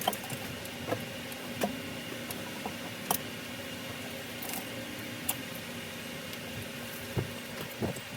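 Scattered light clicks and taps of hand tools and parts being handled on an engine, a few sharper ones about three seconds in and near the end, over a steady low hum.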